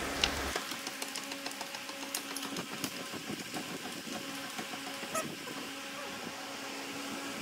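Irregular metallic clicking and ticking as a Volvo D13 engine is turned over by hand with a tool to line up the camshaft marks for valve adjustment. A sharp click comes just after the start, and a faint hum comes and goes.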